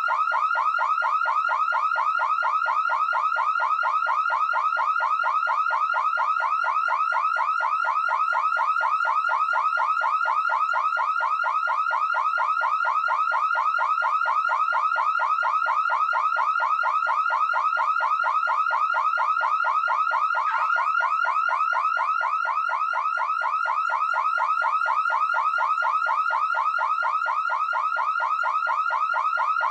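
Electronic alarm siren sounding continuously, a loud high-pitched tone sweeping rapidly over and over, several sweeps a second, at an even level.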